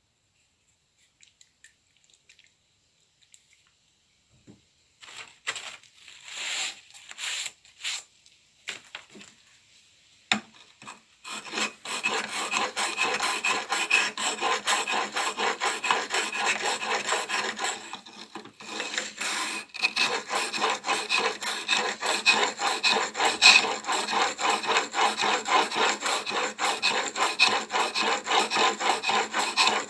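A steel chisel clamped in a honing guide being rubbed back and forth on an oiled oilstone, a gritty scraping with each stroke. After a few quiet seconds with small clicks it starts in short separate strokes, then settles into a fast steady rhythm of strokes, pausing briefly about two-thirds of the way through.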